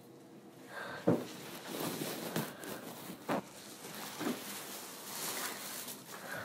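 Handling noise of a phone being moved about: clothing and fabric rustling, with four soft knocks spaced about a second apart.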